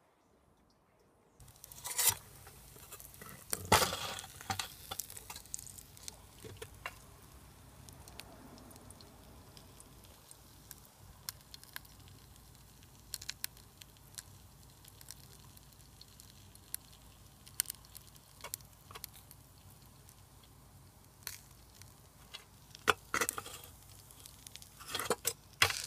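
Glowing charcoal in a homemade pizza oven, crackling and ticking with sharp, sparse clicks over a faint sizzle. There are a few louder knocks and rustles about two and four seconds in and again near the end.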